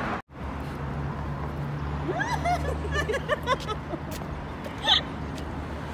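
Road traffic on a city street: a steady low hum of passing cars after a brief dropout right at the start. Several short rising-and-falling squeaks come about two to three and a half seconds in, and another brief sharp one near the end.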